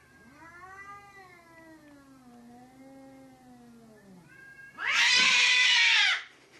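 Cat caterwauling at another cat in a territorial standoff: a long, low yowl rising and falling in pitch for about four seconds, then a sudden loud, harsh screech lasting over a second that cuts off abruptly.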